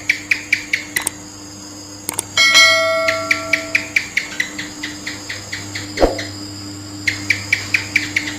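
Common house gecko (cicak) calling: rapid runs of sharp chirping clicks, about five or six a second, in several series. A loud bell-like ring sounds about two and a half seconds in and fades over a second or so.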